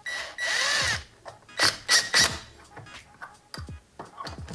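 A drill drives a screw through the bracket into plywood in one short burst of about a second, its motor whine bending in pitch. A few sharp clicks follow about two seconds in.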